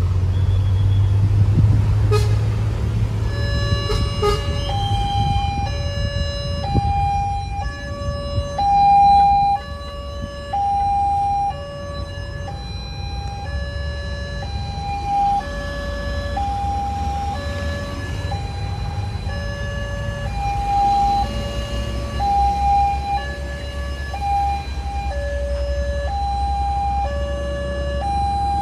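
Railway level-crossing warning siren sounding from a single horn speaker, a two-tone high-low alternation repeating about once every two seconds, starting about four seconds in. It warns that a train is approaching. Under it runs the low rumble of road traffic, loudest at the start.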